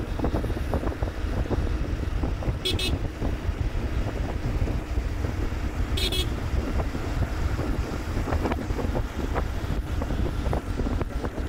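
Wind buffeting the microphone and road rumble on a moving motorbike in traffic, a steady unbroken roar. Two short high-pitched beeps sound about three seconds apart.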